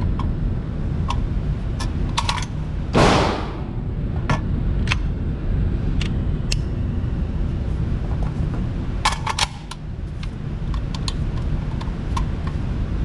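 Metallic clicks and clacks of a Rock Island VR80 12-gauge semi-automatic shotgun being handled at the receiver and box magazine, with a quick cluster of sharp clicks about nine seconds in, over a steady low rumble. A single loud gunshot rings out about three seconds in.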